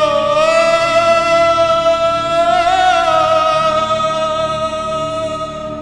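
A singer holding one long note over a karaoke backing track. The pitch lifts slightly about halfway, and the note fades near the end.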